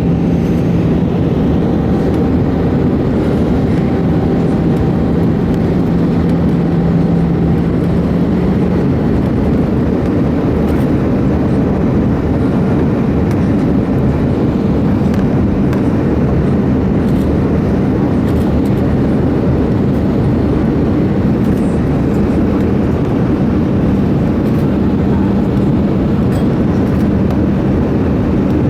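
Cabin noise inside an Airbus A319-112 in flight on approach: a steady rush of airflow with the hum of its CFM56 engines. A low steady engine tone fades about eight seconds in and returns later.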